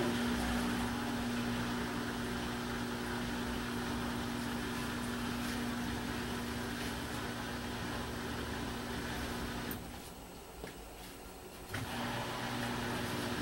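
Samsung WD136 direct-drive front-loading washer-dryer running in its drain phase: a steady mechanical hum with the drum turning the wet clothes. About ten seconds in the machine goes quiet for about two seconds, then starts up again.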